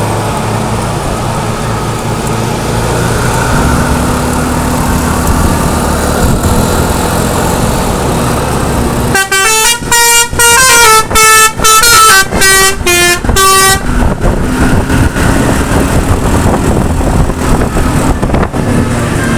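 Steady engine and road noise of moving traffic, then about nine seconds in a bus's Basuri V3 telolet horn plays a quick tune of short notes that step up and down, for about four and a half seconds, before the road noise goes on.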